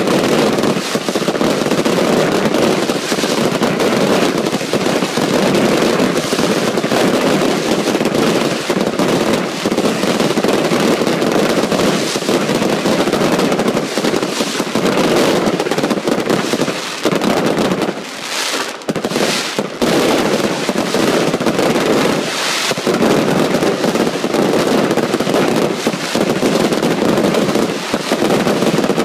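Daytime fireworks: a dense, unbroken run of rapid bangs and crackling from shells bursting in the sky, easing briefly about two-thirds of the way through.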